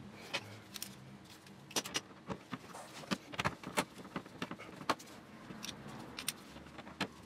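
Irregular light clicks and metallic clinks of hand tools and screws as fasteners go into a car's plastic underbody skid plate.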